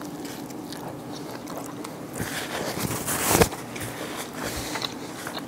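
A man biting into and chewing a toasted bread-roll fish slider, picked up close by a clip-on chest microphone, with a louder, noisier stretch between about two and three and a half seconds in.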